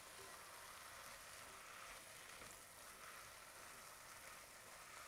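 Faint, steady sizzle of sliced zucchini and green onion frying in oil and curry paste in a pot.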